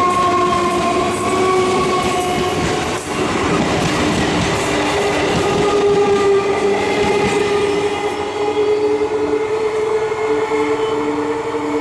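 Indian Railways EMU local train running past at close range: wheels clatter on the rails over a hum of several steady tones from its electric traction motors. The lowest tone creeps slowly upward as the train accelerates. About two-thirds of the way through, a pulsing tone joins the hum.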